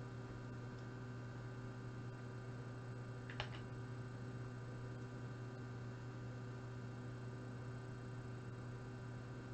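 Steady electrical hum with a few fixed tones, and one short faint click about three and a half seconds in.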